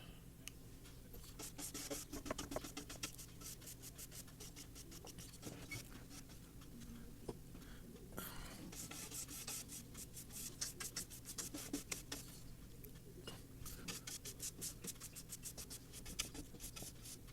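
Natural-bristle paintbrush being stroked across a wooden cabinet, laying on shellac: faint, irregular scratchy brushing sounds in uneven clusters.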